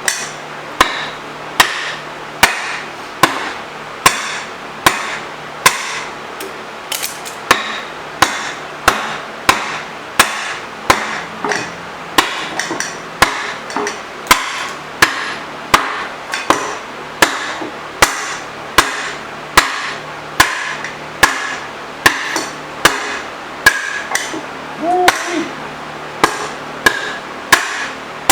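Steady hammer blows, a little over one a second, driving a rust-seized Monarch 10EE lathe tailstock along the bed ways to free it. Some blows ring briefly.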